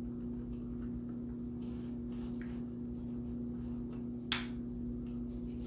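Faint mouth sounds of a person chewing and sucking on adobo-style chicken feet, with small scattered clicks and smacks over a steady low hum. A single sharp click about four seconds in.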